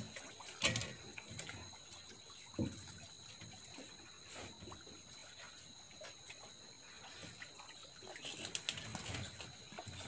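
Small lake waves lapping gently against shoreline rocks, with two sharp knocks in the first few seconds. Two faint, steady high-pitched tones run underneath.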